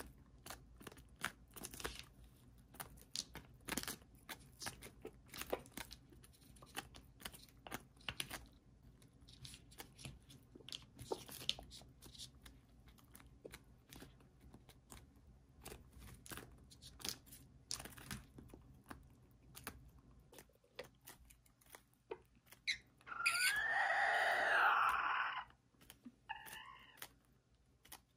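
Serama bantam roosters pecking and tearing at napa cabbage leaves: many quick, crisp beak clicks and crunches. Near the end one rooster gives a loud crow lasting about two seconds that rises and falls in pitch, followed by a shorter call.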